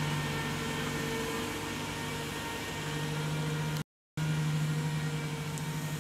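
Heavy log truck's diesel engine running steadily as it pulls along a muddy track. The sound cuts out completely for a moment about four seconds in, then the engine hum resumes.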